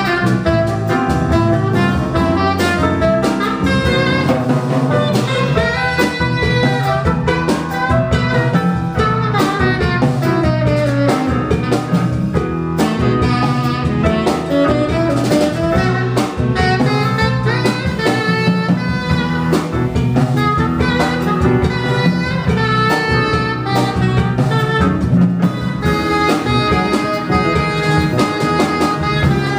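Live jazz quartet playing: tenor saxophone carrying the melodic line over piano, electric bass and drum kit.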